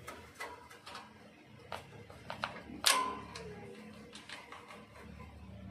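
Scattered metal clicks and taps from hands working the blade adjustment on the side of a paper creasing, perforating and cutting machine, with one sharp ringing metal clink about three seconds in.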